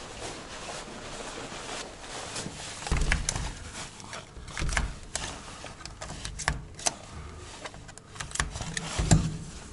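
A plastic card worked into the gap between a door and its frame at the latch: scattered small clicks and scrapes, with a few dull thumps.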